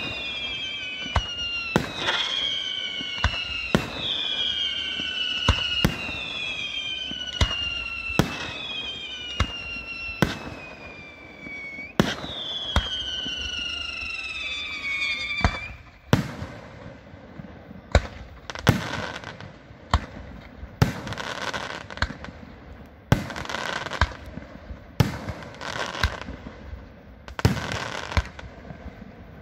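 Aerial firework shells bursting in quick succession, about one bang a second. Through the first half each bang sets off a whistle that falls in pitch. After that the bangs give way to a noisy fizz of smaller bursts.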